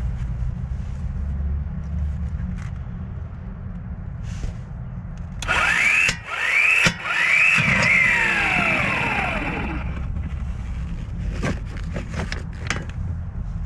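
Mplus 12-volt roadside impact wrench driving a deep 17 mm socket on a brake caliper bracket bolt, starting about five seconds in: it runs in three short bursts, the motor pitch rising and falling each time, and the last run winds down about ten seconds in. A steady low hum runs underneath, and a few sharp clicks follow near the end.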